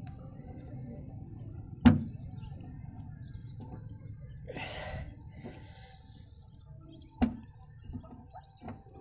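A key working the lock of a sheet-metal fuel-tank hatch on a vehicle body. There is a sharp metallic click about two seconds in, a short rustling scrape around five seconds, and a second click about seven seconds in.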